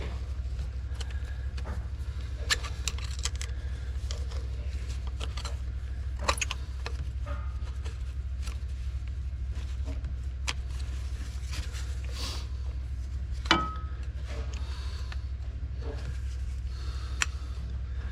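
Scattered metallic clinks and taps of hand tools and loose parts on steel during a tractor teardown. A sharper clink with a short ring comes about thirteen seconds in. Underneath is a steady low hum.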